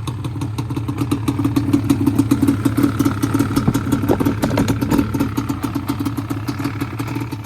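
Small motorcycle engine running with a rapid, even pulse. It picks up for a few seconds in the middle, then settles back toward idle.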